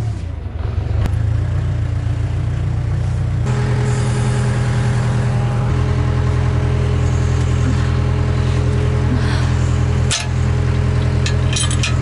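Backhoe's diesel engine running steadily under hydraulic load as it carries a sawn beam hung by a chain from the bucket. It works harder about three and a half seconds in, with a short knock about ten seconds in.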